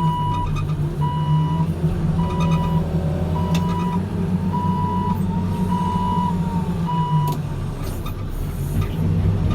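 Reversing alarm beeping seven times, about once a second, over the steady running of a backhoe loader's diesel engine. The beeps stop about seven seconds in.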